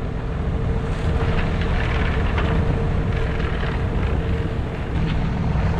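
Steady low rumble of wind and a sailboat's motor running, with a few faint rustles.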